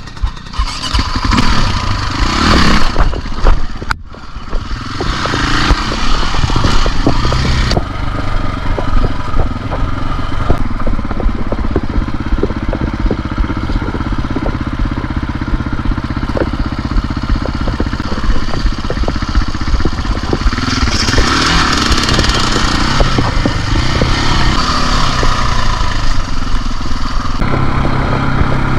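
KTM enduro dirt bike engine running under constantly changing throttle, revving up and down, with a brief drop about four seconds in. Scattered knocks and rattles run through it.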